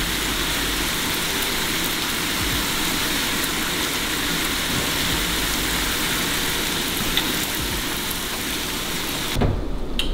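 Corn tortilla chips sizzling in hot oil in a cast-iron skillet: a steady, dense frying hiss that cuts off abruptly near the end.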